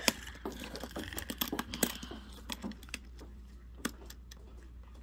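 Light clicks and clatter of small plastic toy fingerboards being handled and set down on a wooden floor, dense for the first couple of seconds, then a few scattered clicks.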